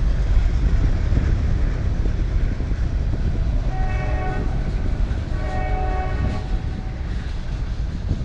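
Freight train cars rolling past with a heavy steady rumble. A diesel locomotive's multi-note horn sounds two blasts in the middle, a short one and then a longer one.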